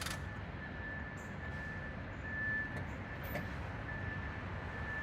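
Low rumble of engines running, with a thin steady whine that fades in and out.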